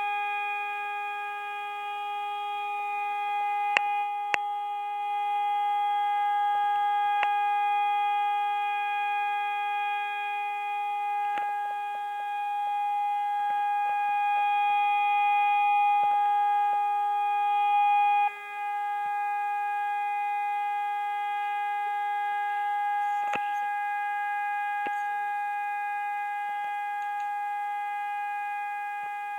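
Hörmann ECN electronic warning siren sounding a steady, unchanging tone: the all-clear signal of the siren test. There are a couple of sharp clicks about four seconds in, and a momentary drop in level about eighteen seconds in.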